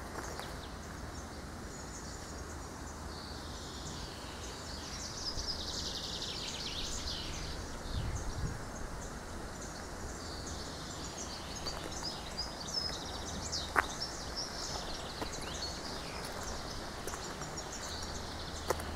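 Small birds chirping and singing in the trees over a steady low background noise, with one sharp click about two-thirds of the way through.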